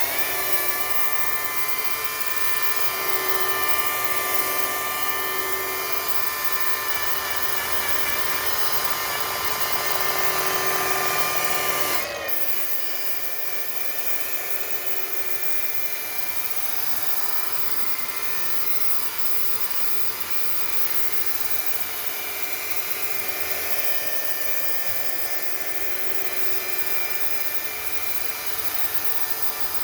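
Hercules rotary polisher running with a sanding disc on a backing pad, sanding body filler on a fiberglass panel: a steady motor whine over the rasp of abrasive on filler. About twelve seconds in the sound changes abruptly and gets slightly quieter.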